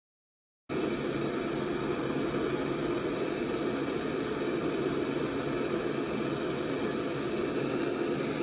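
Handheld gas torch flame burning with a steady hiss, heating a brass ring to flow solder into its joint. The sound starts suddenly about a second in and stops abruptly near the end.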